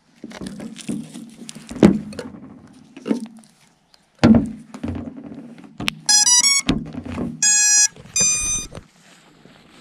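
Handling knocks and rustling, then the FPV quadcopter's motors play the ESC start-up tones as its battery is connected: a quick rising run of beeps about six seconds in, followed by two longer single beeps.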